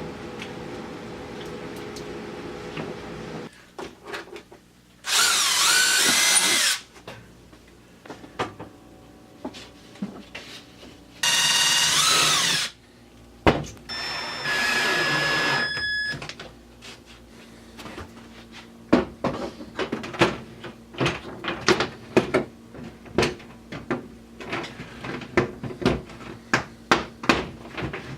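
A power drill runs in three short bursts of about a second and a half to two seconds each, its motor pitch rising and falling as it drives. These are followed by a long series of sharp, irregular clicks and knocks.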